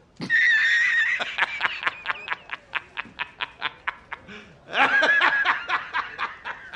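A man's hearty laughter: a long high cry at the start, then rapid staccato 'ha-ha' pulses at about five a second that fade, and a second burst of laughter about five seconds in.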